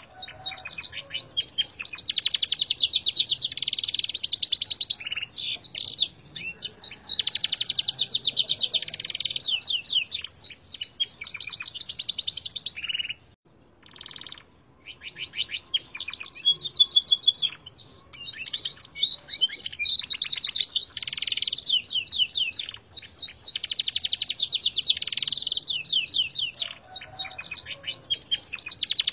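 Gloster canary singing a long run of fast trills and twittering phrases, its song tutored on red siskin song. It breaks off briefly about halfway through, then starts again.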